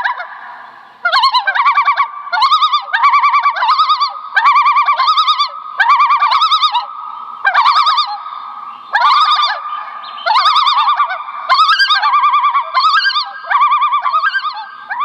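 Bird sound effect: a long run of short, rapidly warbling calls, one to two a second, starting about a second in.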